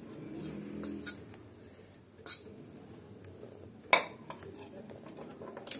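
Metal spoon clinking against glass bowls as shredded cabbage is spooned into a yogurt salad: a few sharp clinks, the loudest at about two, four and nearly six seconds in, with fainter taps around one second.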